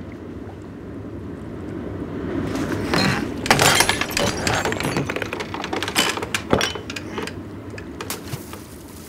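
Objects knocking and clattering on a wooden boat, with a clink of glass, over a low steady rumble. The knocks come thick and fast from a couple of seconds in, are loudest a little past the middle, and thin out near the end.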